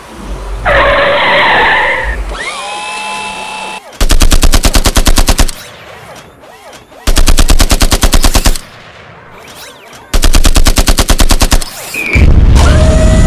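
Three bursts of rapid automatic gunfire, each about a second and a half long and about three seconds apart. A short screech and a held tone come before them, and a low rumble comes in near the end.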